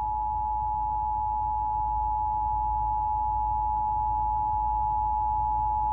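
Emergency Alert System two-tone attention signal, a steady dual tone held without a break over a low background hum. It is the alarm that announces an incoming emergency alert message.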